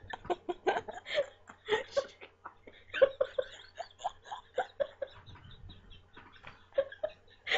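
A young woman giggling softly in short, breathy bursts, breaking into a louder laugh near the end.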